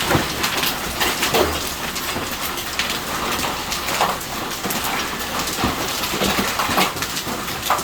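Hailstones hitting a roof in a hailstorm: a dense, continuous clatter with many sharp single hits standing out irregularly.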